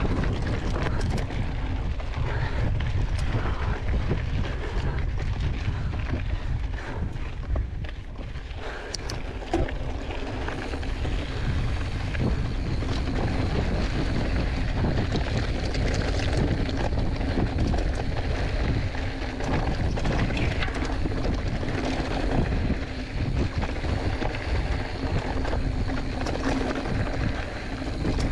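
Hardtail mountain bike ridden fast on a dry gravel-and-dirt trail: steady wind buffeting on the chest-mounted action camera's microphone, with tyre noise and scattered rattles and knocks from the bike.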